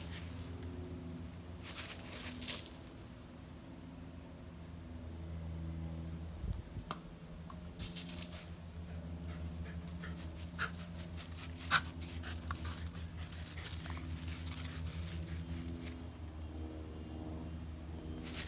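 Crunching on a gravel path in bursts of a second or so, with a few sharp clicks, over a steady low hum.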